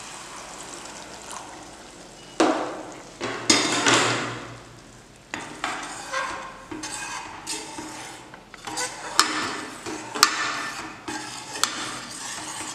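Milk pouring into a pan of hot masala paste with a soft hiss. From about two and a half seconds in, a spatula stirs the thin curry, scraping the pan and knocking against its sides in several sharp clicks.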